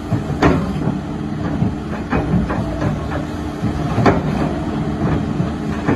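Hitachi hydraulic excavator's diesel engine running steadily, with sharp clanks from the bucket working demolition rubble; the loudest knocks come about half a second in and about four seconds in.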